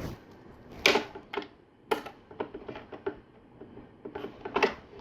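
Light, irregular clicks and taps of plastic LEGO pieces being handled while a sticker goes onto a fin piece. The clicks come a dozen or so times, the sharpest about one and two seconds in.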